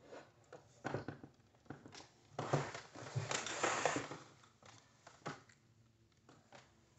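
Faint handling noise: scattered small clicks and taps with bouts of crinkly rustling, busiest a little before the middle.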